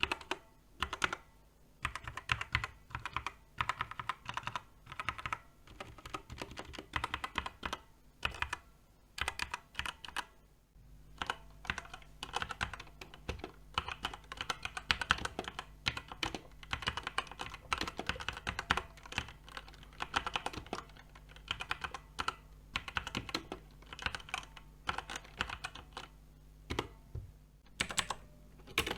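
Typing on a Redragon K568 TKL mechanical keyboard: runs of rapid key clicks broken by short pauses.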